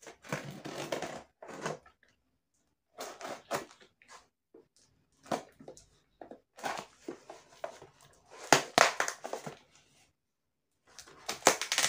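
A taped cardboard parcel being cut open with a small blade and pulled open by hand: irregular scraping, tearing and crinkling of tape and cardboard, coming in bunches with short pauses.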